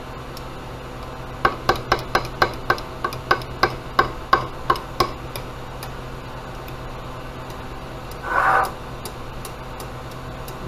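Hot soft plastic being stirred in a glass measuring cup: a quick run of about a dozen sharp clicks, three or four a second, as the stir stick strikes the glass. About eight seconds in comes a short rasp.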